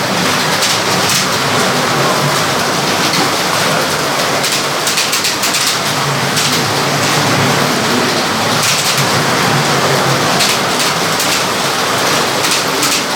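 Several 1/32 scale Carrera slot cars racing on a plastic track: a steady, dense whirr of small electric motors and tyres, with many quick clicks and rattles throughout.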